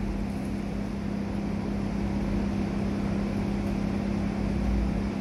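Steady machine hum: a constant low drone with a low rumble and hiss under it, unchanging throughout.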